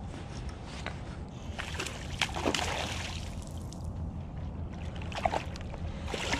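Hooked smallmouth bass splashing at the water's surface during the fight, in several bursts: the longest about two seconds in, more near the end. A steady low rumble runs underneath.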